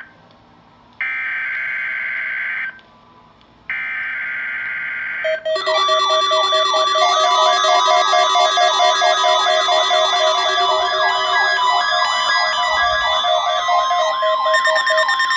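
Emergency Alert System test signal. Two short bursts of a high, buzzing data tone come first, then a loud warbling, siren-like alert tone with steady tones underneath, lasting about ten seconds. It marks the start of a tornado drill alert.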